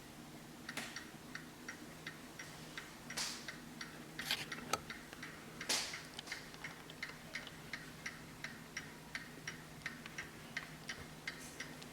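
Hermle mechanical mantel clock ticking, starting about a second in at roughly three ticks a second, with a few louder knocks in the first half.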